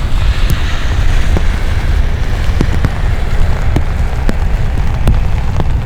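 Steady rain, with scattered single drops ticking close by, over a continuous low rumble.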